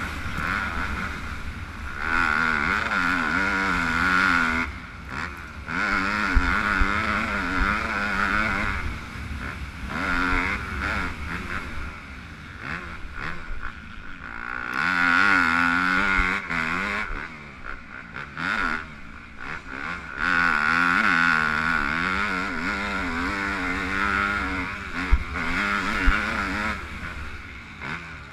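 Yamaha YZ250F fuel-injected single-cylinder four-stroke motocross engine, heard onboard, revving up hard and backing off again and again in surges of a few seconds while racing. Gusts of wind rumble on the microphone.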